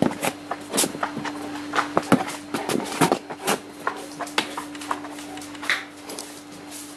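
Neapolitan mastiffs moving about right at the camera: irregular clicks and knocks of paws and bodies brushing past, over a steady low hum.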